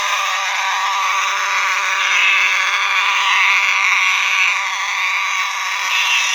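Simplex fire alarm horns, an older 4901 horn and a TrueAlert horn-strobe, sounding together in a loud, buzzy, unbroken blare. A brighter, higher tone swells and fades on top of it.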